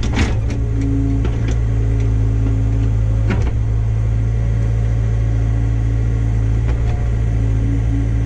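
Excavator engine running steadily under load as it works a large rock loose from the ground, with a sharp knock about three seconds in.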